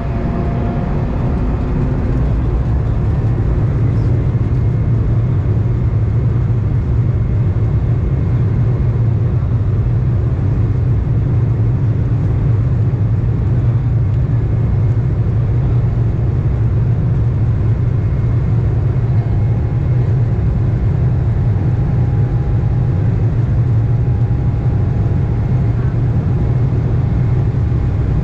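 Steady low cabin rumble of an Embraer E190 taxiing, its two GE CF34-10E turbofans at low thrust, heard from a seat over the wing. A faint steady whine joins about twenty seconds in.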